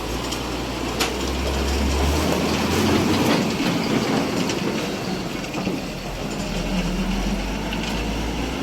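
Road-cutting machine running steadily, a low engine drone under a rough, clattering noise, with a sharp click about a second in.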